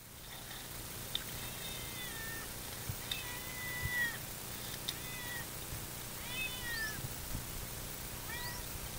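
An animal calling about five times, each a drawn-out, whining cry that falls in pitch at its end.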